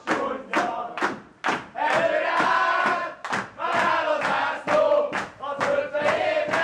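A group of men singing a team victory march together, loud and chanted, with hands clapping in time about twice a second.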